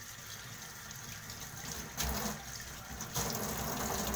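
Kitchen tap running into a stainless-steel sink as leafy greens are rinsed under the stream, the splashing growing louder about two seconds in and again a little after three seconds.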